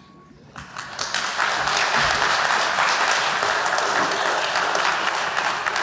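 Audience applauding, rising quickly about half a second in, holding steady and tailing off near the end.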